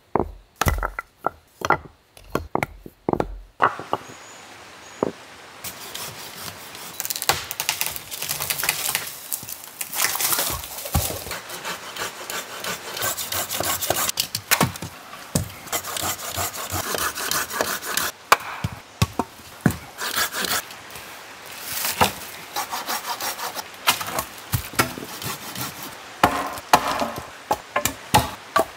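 Stones knocking together as rocks are set into a fire ring, then a hand saw cutting through a dry dead branch in steady back-and-forth rasping strokes.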